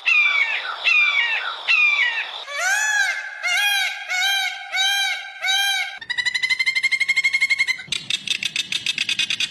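A series of different bird-like animal calls, cut one after another. It opens with three calls that fall in pitch, then five arching, rising-and-falling calls. At about six seconds comes a fast trill, which at about eight seconds changes to an even faster rattle of pulses.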